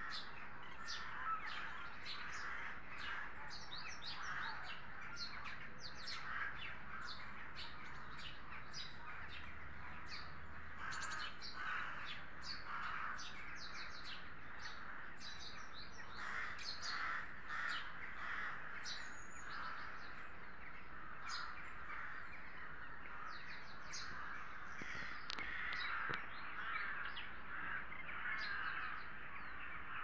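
A large flock of crows cawing overhead, many short harsh calls overlapping in a continuous chorus.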